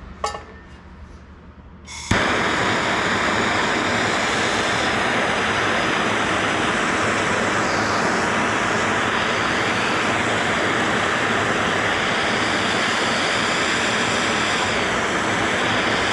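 Handheld gas torch lit about two seconds in after a faint click, then burning with a loud, steady hiss as it heats a cracked aluminum rim for aluminum solder rod.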